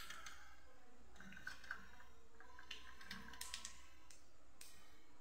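Faint, scattered light clicks and rustles from a pan of puffed rice and a steel slotted spoon.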